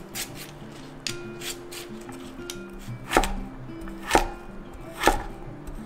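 A hand peeler scraping the skin off a taro root with a few short strokes, then a cleaver chopping taro into cubes on a wooden board, sharp knocks about once a second from about three seconds in.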